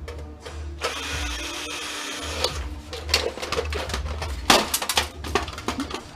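Power drill running in short bursts while taking apart an old electric stove, with sharp metal clicks and knocks from the stove's panels, the loudest about halfway through.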